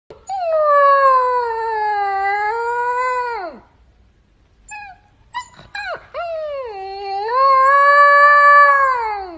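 A dog howling: two long howls of about three seconds each, with a few short yips in the gap between them.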